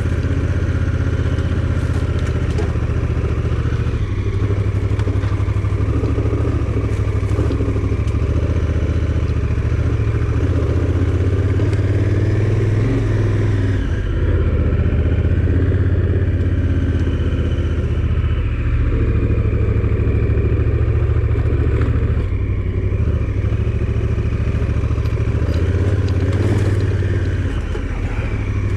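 A motor vehicle's engine running steadily while it is driven over a rough dirt road, with rattles and clatter.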